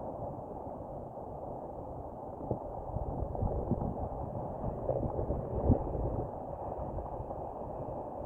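Heavy hurricane swell breaking and washing over granite boulders at high tide, a dense rushing surf with several deep thuds from wave impacts, the loudest about two-thirds of the way through.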